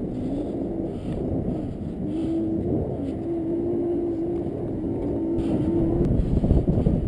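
Low rumbling wind on the microphone, with a faint steady hum that steps up slightly in pitch about two seconds in and fades near the end.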